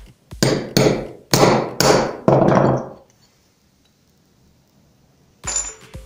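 Hammer striking a steel blade held against a CPU's metal heat spreader to knock it off the die: five quick metal-on-metal clanks in about two seconds, each ringing briefly, the last ringing longest.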